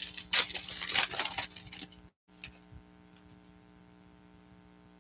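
Foil wrapper of a trading-card pack crinkling and tearing as it is ripped open, for about two seconds. Then the sound drops out briefly and a single click is followed by only a faint steady electrical hum.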